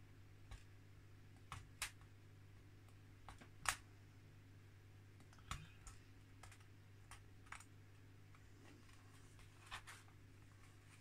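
Scattered, irregular small clicks and taps of a hobby knife working on a metal photo-etch fret laid on a board, one sharper click about four seconds in, over a low steady hum.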